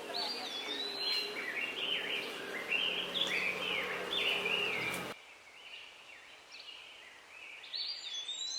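Birds singing: many quick chirping and whistled notes that rise and fall. The sound cuts to a quieter background about five seconds in, with a few more calls near the end.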